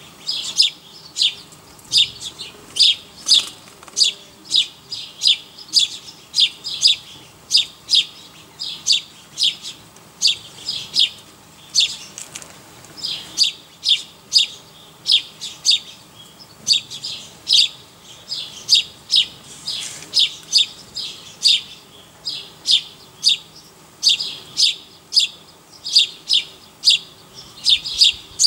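An animal giving loud, regular chirping calls, about two to three a second, in long runs with a couple of short breaks.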